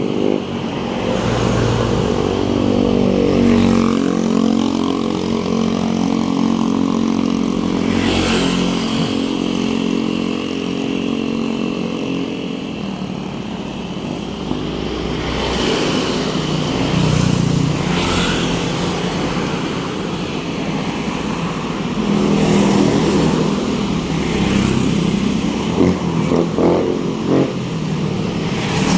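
Road traffic: motor vehicle engines running and passing close by, their pitch rising and falling over a steady rumble.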